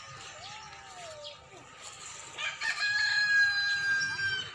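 A rooster crowing once, starting about two and a half seconds in: a single long call that holds its note for about two seconds and then stops.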